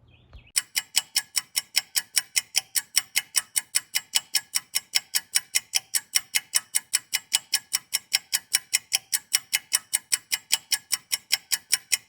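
Clock-ticking sound effect: crisp, evenly spaced ticks at about four and a half a second, starting suddenly about half a second in.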